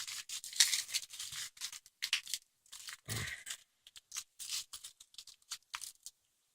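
Packaging being torn open and unwrapped by hand: a string of short, irregular rips and crinkles.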